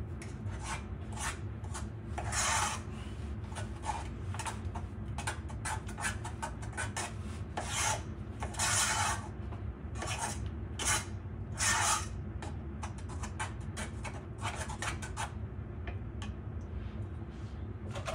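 A utensil scraping and stirring batter in a mixing bowl: irregular rasping strokes, some short and some nearly a second long, over a steady low hum.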